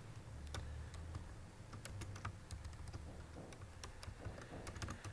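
Typing on a computer keyboard: irregular, scattered key clicks as a few characters of code are entered.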